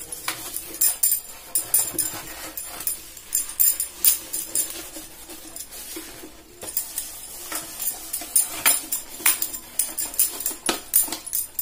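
Handling noise from a plastic mixer-grinder base being turned over and rubbed by hand: irregular knocks and clicks of the hard plastic housing, with light jingling throughout.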